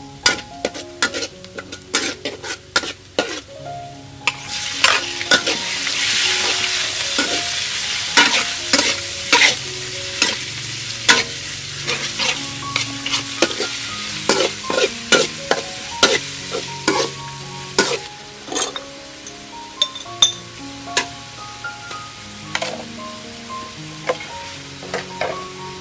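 Garlic and meat frying in oil in a steel wok, sizzling, while a metal ladle scrapes and knocks against the wok as it is stirred. The sizzle grows loud about four seconds in.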